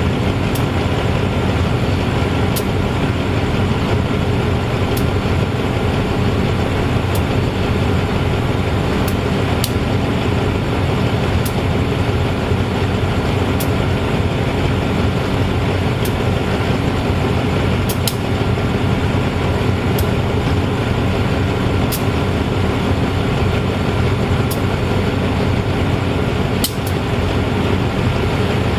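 Diesel engine of a GE-A class diesel-electric locomotive running steadily while the locomotive stands. Faint sharp ticks come about every two seconds.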